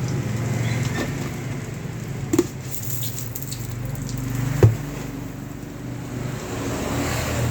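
Garlic and chili frying in hot oil in a pan, a faint sizzle over a steady low hum. There are two sharp knocks, about two and a half and four and a half seconds in.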